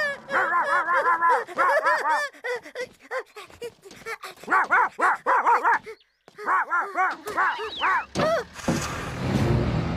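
Cartoon dog barking in rapid runs of sharp barks, with a brief break about six seconds in. Near the end the barking gives way to a noisy rush of sound.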